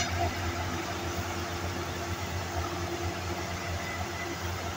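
Diesel engine of a crawler-tracked rice combine harvester running steadily, a constant low hum with mechanical noise, as the machine creeps down off the road edge into the paddy.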